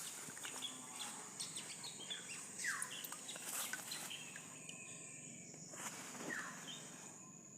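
Insects keep up a steady high buzz, and a bird gives a short, falling call twice, about two and a half seconds in and again about six seconds in. Faint clicks and rustles also come and go.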